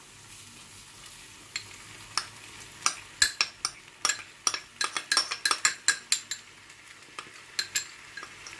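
Rice going into a sizzling pan of seafood sauce: a steady low sizzle, with many sharp, irregular clicks of a utensil against the pan from about a second and a half in.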